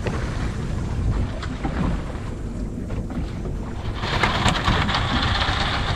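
Wind buffeting the microphone over the steady rush of sea water around a boat, a little louder about two-thirds of the way through.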